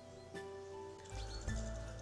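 Background music of slow, held notes that change every half second or so.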